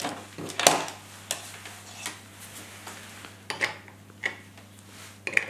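Sharp plastic clicks and knocks of USB plugs and small gadgets being handled and plugged into a USB hub on a wooden table, about seven in all, the loudest under a second in, over a faint steady low hum.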